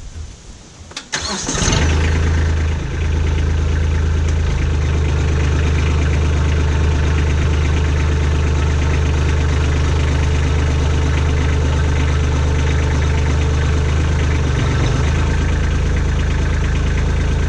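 Kubota B2601 compact tractor's three-cylinder diesel engine cranked by the starter and catching just under two seconds in. It then runs steadily while the front-end loader is raised to full height.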